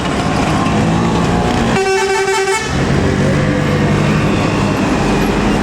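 A tour bus's multi-tone telolet horn plays a quick run of short notes for under a second, about two seconds in, over the steady drone of bus engines.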